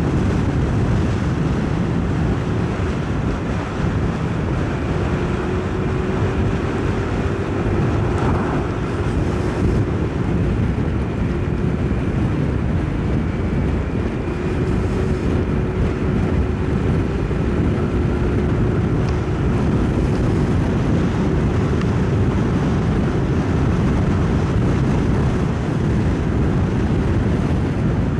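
Motorcycle riding at a steady speed, heard through a helmet-mounted mic: a constant heavy wind rush over the helmet with a steady engine note underneath.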